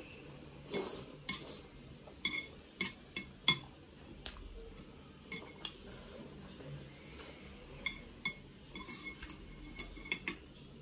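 Chopsticks tapping and clicking irregularly against a plate while picking up noodles, with eating sounds in between.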